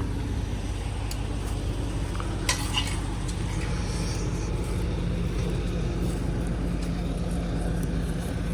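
Engine of a digging machine running steadily, with a couple of clanks about one and two and a half seconds in.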